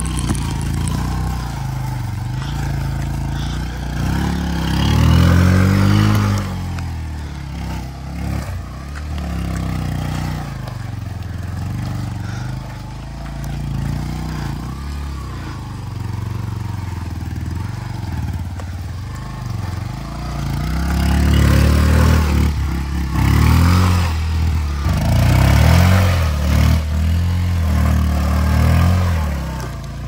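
Motorcycle engine running and revving up in surges, about four seconds in and again several times through the second half, as it works the bike up a slippery mud slope.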